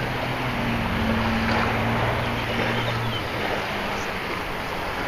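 Wind buffeting the microphone over surf on the beach, with a steady low hum that stops about three seconds in.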